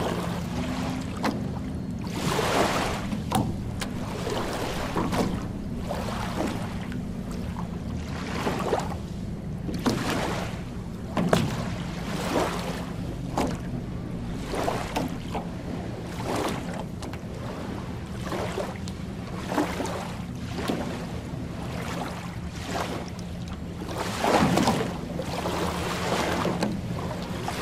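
Small waves lapping on a sandy lake shore, a wash every second or two, over a steady low hum.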